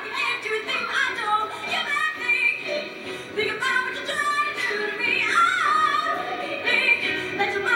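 Show choir singing, with a woman's lead voice on a microphone carrying the melody over the ensemble and music.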